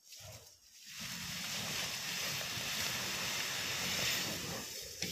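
A steady, loud hiss of rushing noise that starts about a second in and fades near the end.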